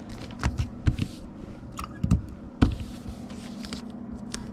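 Comic books being slid into plastic comic bags with backing boards: a handful of light taps and knocks with brief rustling of plastic and card, over a steady low hum.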